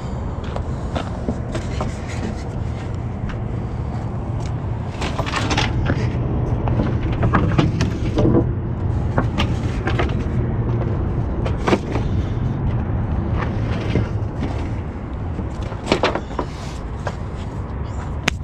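Wooden dunnage beams knocking and clattering as they are handled and laid down, with several sharp knocks scattered through. Under them runs a steady low engine rumble.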